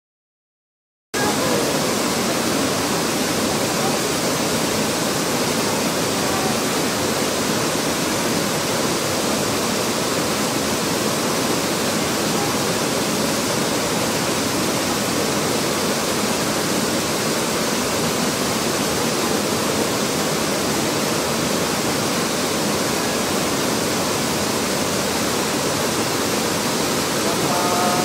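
Mountain waterfall and stream water rushing in a steady, even roar that begins suddenly about a second in.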